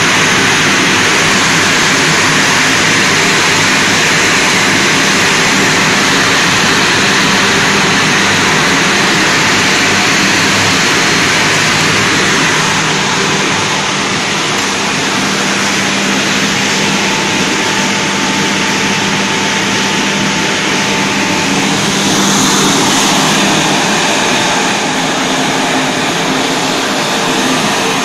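Automatic wet blasting machine running: a loud, steady hiss of its blast nozzles spraying a water-and-abrasive slurry inside the cabinet, over a steady low hum. The hiss eases slightly about halfway through, then brightens again.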